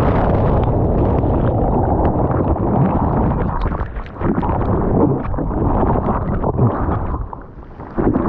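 Wind buffeting and water rushing over a surfer's GoPro microphone in the sea, a loud rough noise that eases for a moment near the end.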